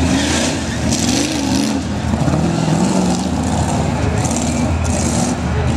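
Modified pickup truck engines revving hard, their pitch rising and falling repeatedly, with several short hissing noises over the top.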